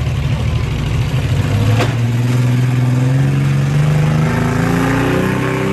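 Demolition derby van and pickup truck engines revving hard, the pitch climbing and falling as they accelerate on the dirt, with a single sharp bang about two seconds in.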